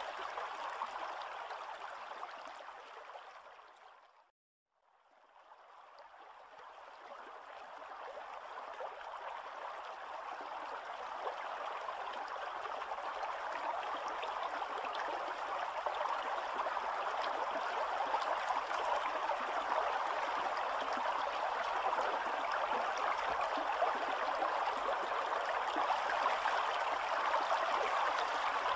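Shallow spring-fed stream rushing over rocks in a steady wash of water noise. It fades out about four seconds in, drops to silence for about a second, then fades back in and grows gradually louder.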